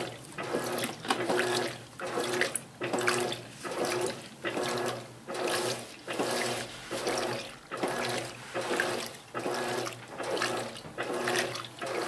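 Electrolux LAC12 top-load washing machine agitating a full tub of water and bedding with its four-blade agitator: rhythmic sloshing surges, a little more than one a second, each stroke carrying a faint motor hum. This is the normal wash agitation at high water level without turbo, with the load rolling over.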